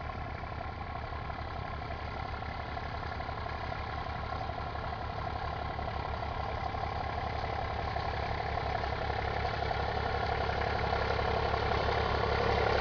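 IMT 539 tractor's three-cylinder diesel engine running steadily under load while pulling a harrow, getting louder as the tractor approaches.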